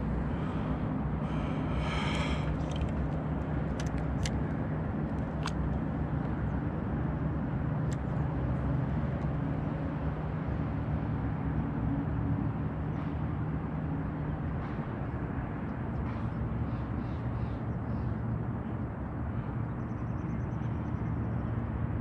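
A boat motor running with a steady low hum under a constant broad rush of noise.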